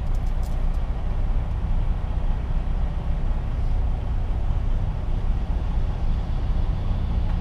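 Semi-truck's diesel engine and road noise heard from inside the cab while driving: a steady low rumble, with a couple of short clicks near the start.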